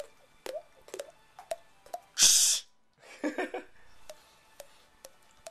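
Fingers tapping a cheek held over an open, rounded mouth, making hollow pitched pops like water drops, about two a second. About two seconds in comes a loud burst of breath, then a short voiced sound, then the taps resume.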